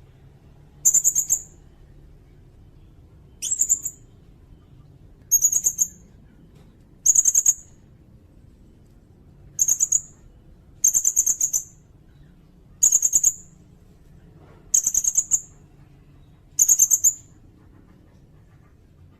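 Sirindet bird calling: nine short, very high-pitched, rapidly pulsed trills, each about half a second long, repeated every couple of seconds.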